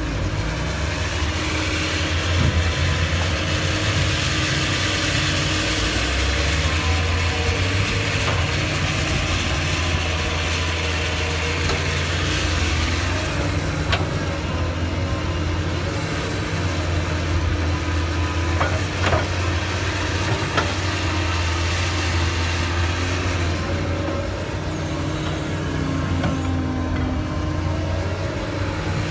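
Doosan DX225LCA crawler excavator's diesel engine running steadily under load as it digs and spreads soil with its bucket, with a few sharp clanks along the way.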